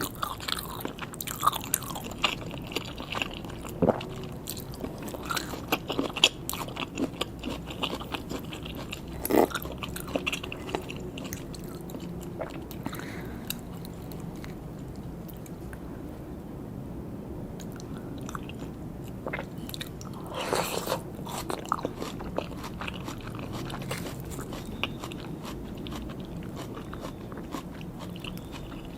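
Close-miked chewing and biting of sushi and sashimi, with irregular clicks and smacks of the mouth. It goes quieter for a few seconds in the middle, then a denser cluster of clicks comes about two-thirds of the way through.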